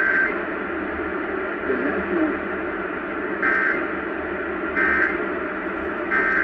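Radio static hiss over a received broadcast, broken four times by short bursts of a two-tone data squeal.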